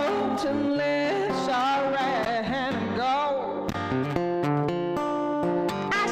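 A woman sings with vibrato to an acoustic guitar accompaniment. About halfway through, the voice drops out and the guitar chords carry on alone.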